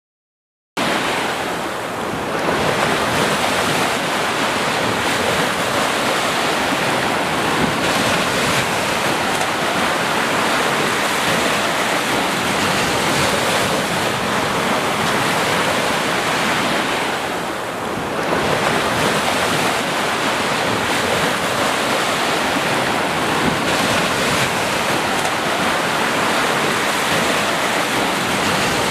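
Sea surf: a steady, dense rush of waves washing on the shore, cutting in abruptly about a second in, easing slightly twice before building back.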